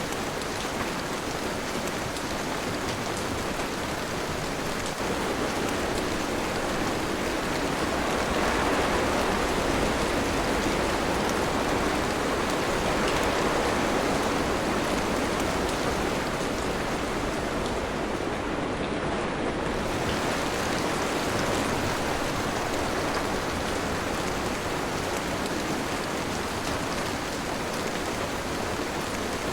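Steady, dense rainfall, swelling slightly in loudness through the middle.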